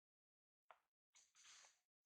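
Near silence, broken by two faint, brief sounds: a short sweep falling in pitch just under a second in, and a soft hiss near the end.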